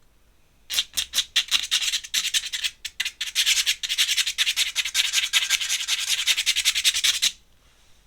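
A worn-out ('dead') pen nib scratching rapidly over paper in quick repeated strokes. It starts about a second in and stops abruptly near the end.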